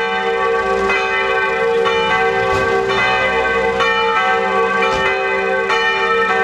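Church bells pealing from a bell tower, several bells struck in turn about twice a second with their ringing overlapping.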